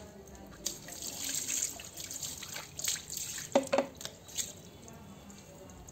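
Water being poured over a wet dog and splashing and dripping onto a concrete floor, with a few sharp clicks a little past the middle.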